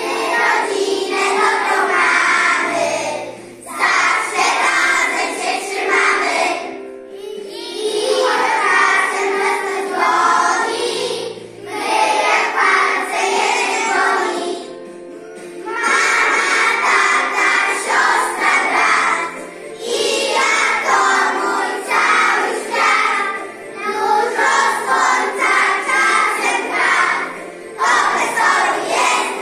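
A large group of young children singing a song together in Polish, phrase by phrase with short breaths between, over a recorded musical accompaniment.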